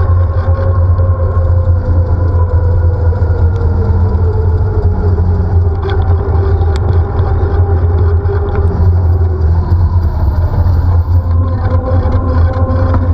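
Steady loud low rumble of wind and road vibration picked up by a bicycle-mounted camera while riding on a wet street, with a faint whine that slowly falls and then rises again in pitch.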